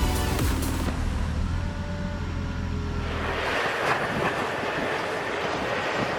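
Heavy machinery running: a steady engine hum that about three seconds in gives way to a loud, even rushing noise.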